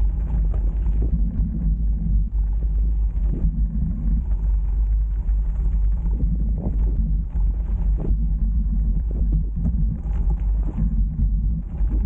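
Mountain bike rolling fast downhill over a rocky dirt trail, heard as a steady low rumble of wind buffeting the action camera's microphone, with frequent knocks and rattles as the tyres hit stones and bumps.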